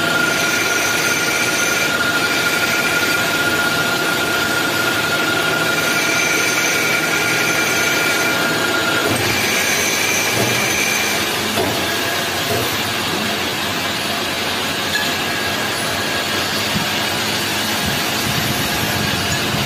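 Hydraulic pipe chamfering and turning machine running: a steady, dense mechanical noise from its spindle motor and hydraulic power pack, with a high whine that comes and goes during the first half. It gets slightly quieter about halfway through.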